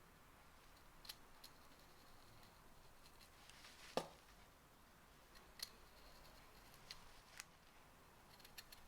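Carving knife whittling ginkgo wood: faint, scattered slicing cuts, with one sharper click about four seconds in.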